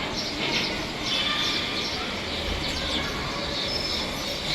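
Birds chirping: many short, high chirps in quick succession over a steady background hiss.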